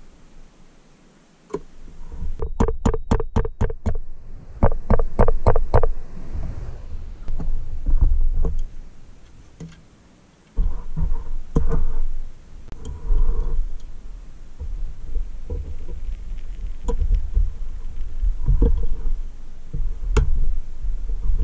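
Two quick runs of sharp metallic taps, about six a second, as hand tools work on the pressed-steel body of a vintage Tonka toy forklift during reassembly, followed by scattered knocks and handling of the steel parts on a carpeted bench.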